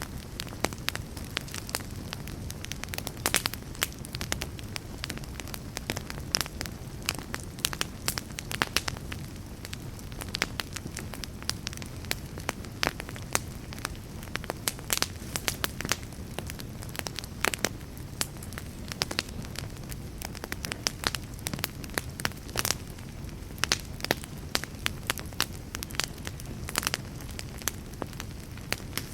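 Wood fire in a fireplace, burning with a steady low rumble and many irregular sharp crackles and pops from the burning logs.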